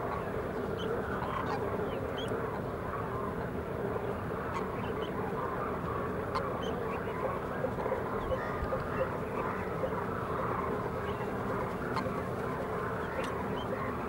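A large flock of demoiselle cranes calling all at once: a steady din of many overlapping honking calls, with brief higher chirps scattered on top.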